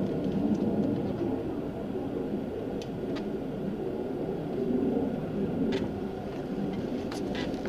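Steady low rumble with a few faint clicks; no rifle shot is fired.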